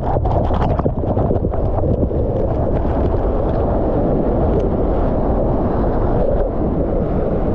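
Heavy rushing water of a large waterfall heard up close, a loud steady noise heaviest in the low end, with wind and spray buffeting the microphone and scattered small crackles.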